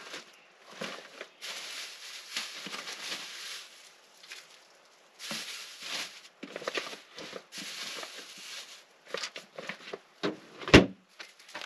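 Hands rummaging in a hard plastic cooler packed with ice: plastic-wrapped food rustling and ice shifting in stretches, with small knocks. Near the end comes one loud thump as the cooler lid is shut.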